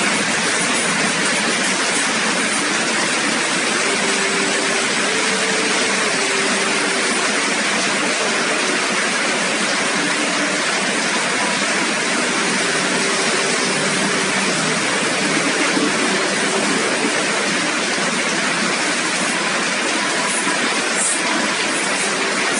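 Steady rain falling hard, an even hiss that doesn't let up.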